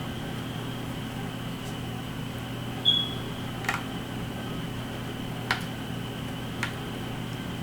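Steady room hum, with a short high beep about three seconds in and three light clicks of a small screwdriver and plastic propeller parts being handled, as the propellers of a DJI Mini 3 drone are swapped.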